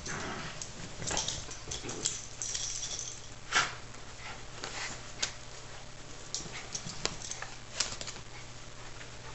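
A Yorkshire terrier and miniature schnauzers scuffling in play over a toy hedgehog: scattered taps and scrapes of paws and claws, with one louder short sharp sound about three and a half seconds in.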